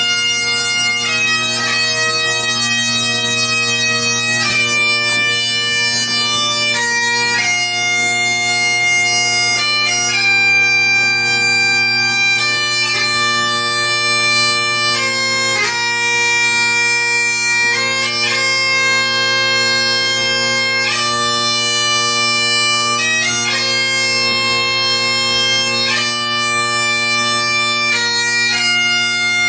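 Bagpipes playing a tune over steady drones, without a break.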